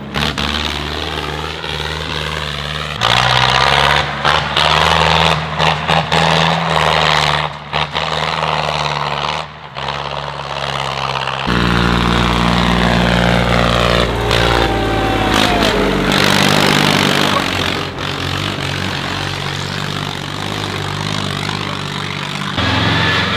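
Tractor engines running hard under load, a deep steady engine sound. Its pitch and loudness change abruptly several times, about 3, 11 and 16 seconds in and again near the end.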